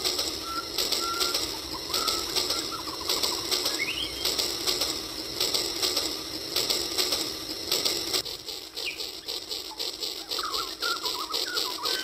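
Battery-powered toy train locomotive running along plastic track, pulling tanker cars with a fast, even rhythmic clicking clatter from its motor and wheels; a few birds chirp briefly.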